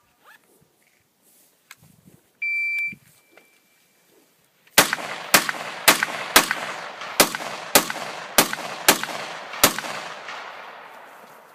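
An electronic shot timer gives its start beep, one steady high tone lasting about half a second. About two seconds later a rifle fires a string of about nine shots, roughly two a second, each followed by a range echo that fades out after the last shot.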